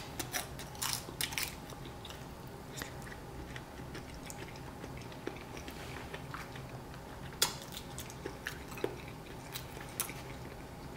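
A person chewing a mouthful of soft steamed rice rolls, with short wet mouth clicks: several in the first second and a half, then a few scattered ones over a low, steady room background.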